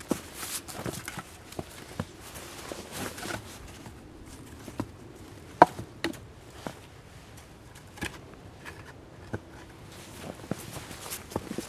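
Footsteps in shallow snow, and then a stick being set and pushed in among the upright wooden stakes of a fire reflector. There are scattered knocks and rustles, and one sharp knock about five and a half seconds in.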